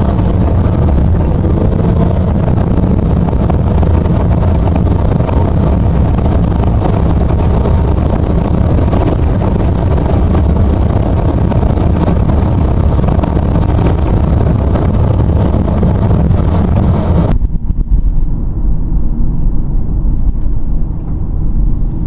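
Vehicle driving at road speed: a loud, steady rumble of engine, tyre and wind noise. About three-quarters of the way through, the higher part of the noise cuts off suddenly, leaving a duller low rumble.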